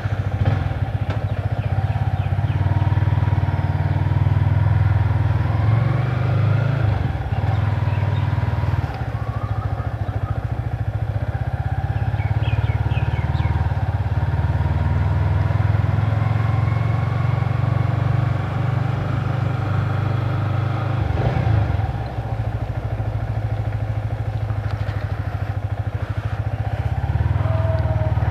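Yamaha sport motorcycle being ridden: the engine runs steadily under way, with heavy low rumble from wind and road.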